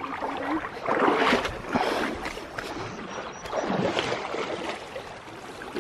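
Creek water sloshing and splashing, swelling louder about a second in and again about four seconds in.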